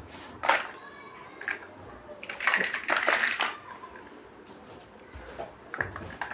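Plastic building bricks clicking and clattering as they are handled and pressed together, a few separate clicks and then a busier run of clatter in the middle.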